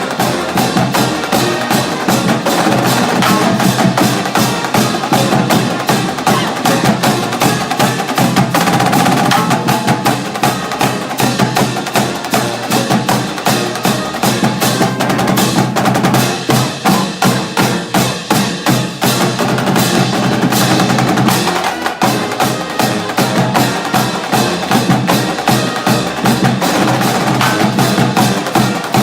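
College marching band playing, with a drumline beating out a steady, driving rhythm under sustained band chords.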